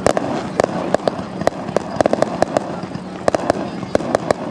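Fireworks going off: a rapid, irregular series of sharp pops and crackles, about four or five a second.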